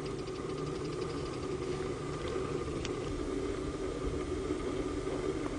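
A steady hum with a faint high whine, and one faint click about three seconds in.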